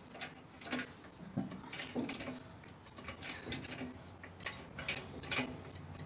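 Hydraulic floor jack being pumped by its handle to lift the truck's rear axle: a series of light clicks and clanks, about two a second.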